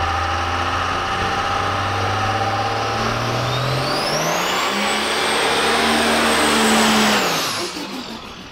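Cummins 5.9-litre inline-six diesel in a miniature semi truck running hard, revving up about three and a half seconds in with a high whistle rising and holding, over the rushing noise of the rear tyres spinning in a burnout. The engine and whistle fall off near the end.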